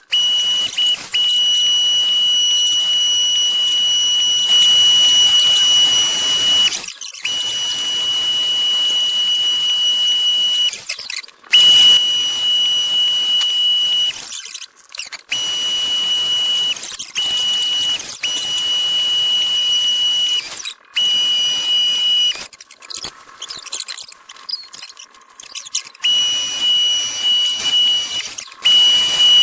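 Electric power tool with a steady high-pitched whine, run in stretches of a few seconds with short breaks between them.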